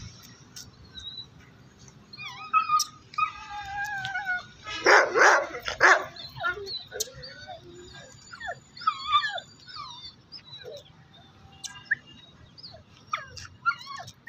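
Dogs whining and yelping in short, sliding high calls, with two loud barks about five and six seconds in.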